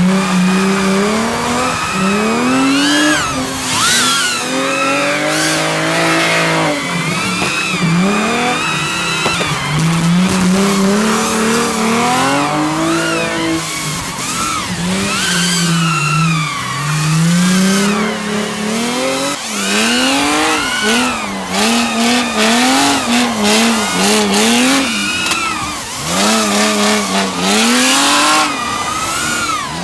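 Drift car engine revving hard up and down through long throttle sweeps, with tyre squeal and skidding hiss beneath. Later the revs bounce quickly, about twice a second.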